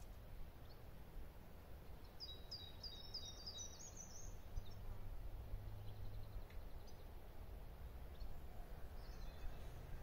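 A small songbird sings a quick phrase of about seven high, repeated notes a couple of seconds in, followed by a few fainter calls, over a steady low rumble.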